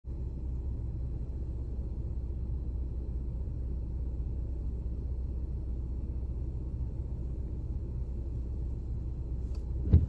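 Steady low rumble of a parked car idling, heard from inside the cabin. A single sharp knock comes right at the end.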